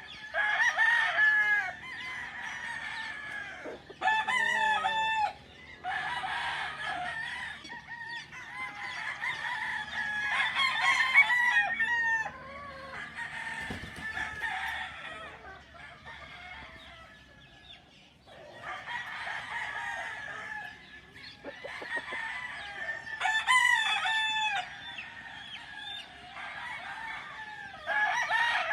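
Several roosters crowing again and again, their crows overlapping, with chickens clucking in between. There is a quieter lull in the middle.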